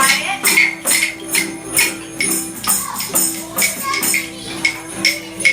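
A ukulele jam band playing, with a tambourine keeping a steady beat of about two strokes a second over the held chords.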